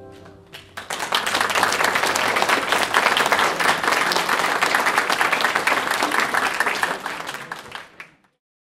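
Congregation applauding: dense clapping that builds within the first second, holds steady, then stops abruptly near the end.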